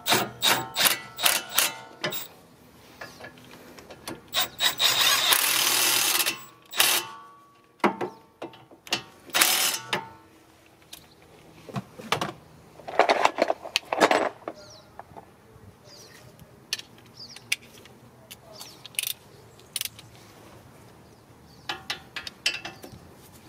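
Ratchet tools clicking and working on brake caliper bolts, with rapid clicks at the start, a steady hiss lasting about two seconds about five seconds in, a few louder metallic knocks, and a run of hand-ratchet clicks near the end.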